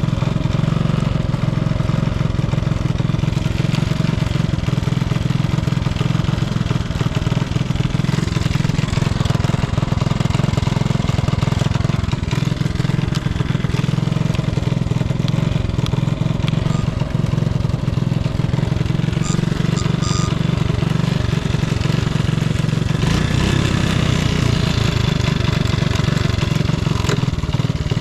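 Honda Super Cub 70 (C70) single-cylinder four-stroke engine running steadily, with no abnormal noise; the tone changes about five seconds before the end.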